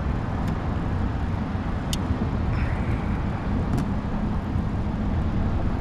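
Steady low outdoor rumble, a mix of wind on the microphone and distant traffic-like noise, with a few faint sharp clicks.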